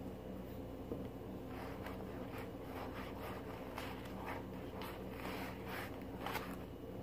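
Glue and shaving cream slime mixture being stirred in a bowl as Tide is worked in a little at a time: a run of quiet squishing, scraping strokes, about two a second, starting about a second and a half in, over a faint steady hum.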